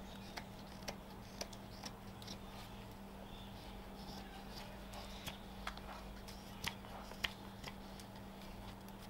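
Carving knife taking short slicing cuts in spalted birch as a spoon handle is shaped: a string of crisp little clicks, about two a second for the first couple of seconds, then sparser and irregular, the sharpest ones a little after 7 seconds in.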